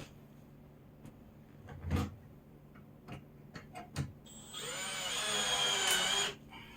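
Cordless drill/driver driving a screw into wood for about two seconds, its motor whine sagging slightly in pitch under load before it stops. A few sharp knocks of wood and tool handling come before it.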